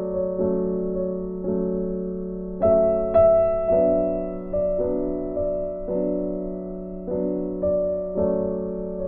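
Background music on piano or electric piano: soft chords struck about once or twice a second, each fading, over a held low note.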